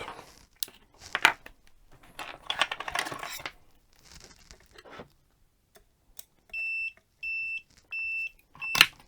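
Clicks and crinkly handling noise, then a digital multimeter beeping four times: short, evenly spaced high beeps at one steady pitch. A sharp click overlaps the last beep.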